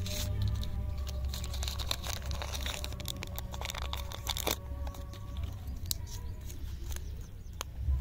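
Crinkly lollipop wrapper being peeled and torn open by hand: a run of dense crackles and small tears, busiest in the first half, over a steady low rumble.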